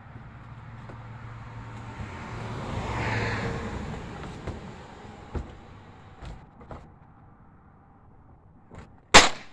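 A snowboard balanced across the plastic lids of two wheelie bins knocks a few times as a rider climbs onto it and crouches, then one loud sharp smack near the end as he jumps off. A broad rush of noise swells and fades in the first half.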